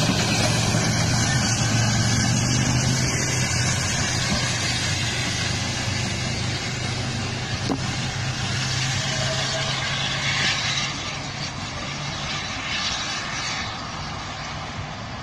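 Hunslet Austerity 0-6-0 saddle tank steam locomotive running along the line and moving away, its sound slowly fading.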